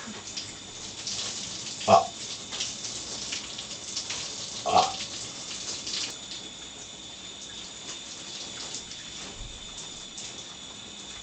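Two short, loud burps about three seconds apart, over the steady hiss of a running shower.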